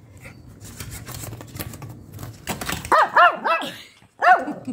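Small dog, a Shih Tzu, barking: three quick barks about three seconds in and another just after four seconds.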